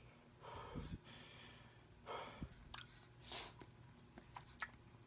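Person slurping instant noodles off a fork and chewing, in three short slurps with small wet mouth clicks between.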